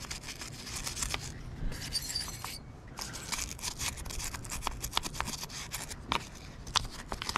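Small brass wire brush scrubbing the solvent-wet metal turret of a Hardinge HC chucker lathe: a quick, irregular run of short scratchy strokes.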